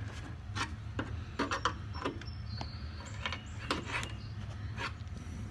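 Flathead screwdriver prying at the retaining clip on a liftgate gas strut's end fitting: a string of small, irregular clicks and taps over a steady low hum.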